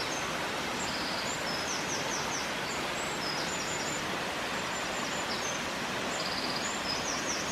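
Waterfall rushing steadily, with a small bird singing short, repeated high trills over the water noise.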